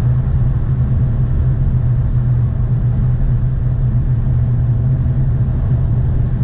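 Car cruising at highway speed, heard from inside the cabin: a steady low drone of engine and road noise.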